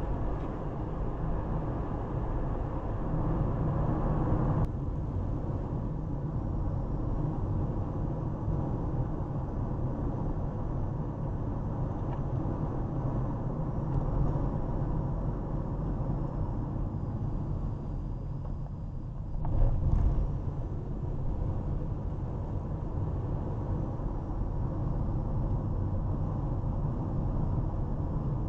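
Steady road and engine rumble of a moving Honda CR-V, heard inside the cabin through the dash cam's microphone. A brief louder bump comes about twenty seconds in.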